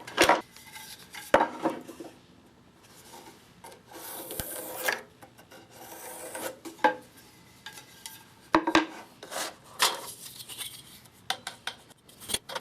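Wooden workpieces being handled and marked out on a bench: scattered light knocks and clicks of wood, with a couple of longer rubbing, scraping strokes about a third and half of the way through.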